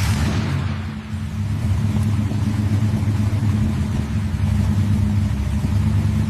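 Toyota Corolla AE111 engine idling steadily, a continuous low rumble.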